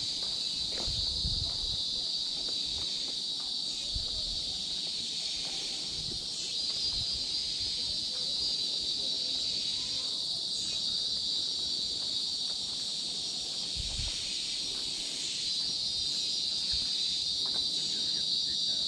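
Dense chorus of tropical forest insects: a steady, high-pitched shrill drone that swells and eases a few times, with a few faint low thumps.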